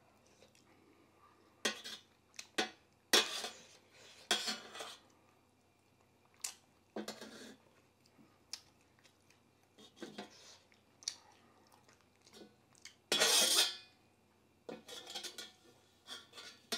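Metal spoon clinking and scraping against a brass plate and bowl in scattered strokes, with several longer scrapes, the longest about two-thirds of the way through, as the last of the food is gathered up.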